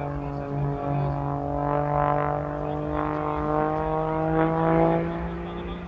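Lycoming AEIO-540 six-cylinder boxer engine and propeller of an MXS aerobatic plane droning in flight, its pitch rising slowly and steadily, loudest a little before the end and then fading.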